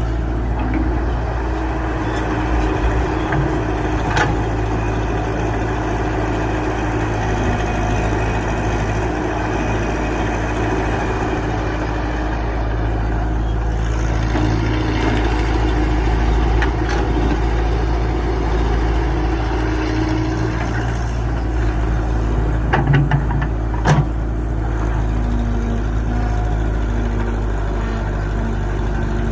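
Excavator engine running steadily, with a few short sharp knocks, one about four seconds in and a cluster near the end.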